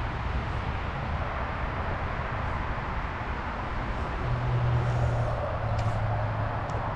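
Steady rush of flowing creek water, under a low hum that grows louder about four seconds in.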